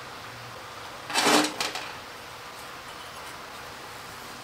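A small metal part set down on a metal workbench: one short clatter with a faint ring, about a second in.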